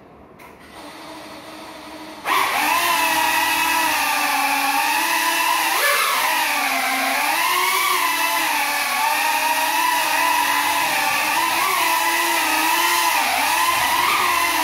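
Small FPV drone's motors spinning up suddenly about two seconds in and then whining steadily, the pitch rising and falling with the throttle. The drone stays on the floor: its broken propellers do not lift it.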